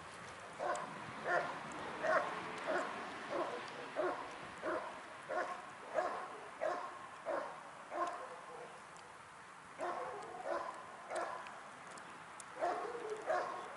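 A Rottweiler barking steadily and repeatedly at the protection helper, about one and a half barks a second, as the hold-and-bark guarding of an IPO protection exercise. The barks stop for a moment about eight seconds in, then start again twice.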